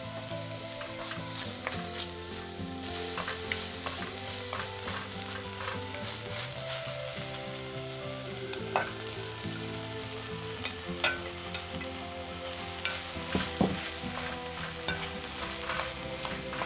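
Diced onion, green onion and serrano pepper sizzling in hot oil in a pot, stirred with a wooden spoon. Sliced button mushrooms are tipped in about halfway through, with a few sharp knocks.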